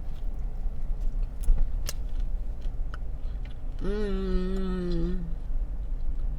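A person biting into and chewing a chicken sandwich, with a few sharp clicks near the start, then a held "mmm" of enjoyment about four seconds in that lasts just over a second. A steady low rumble runs underneath.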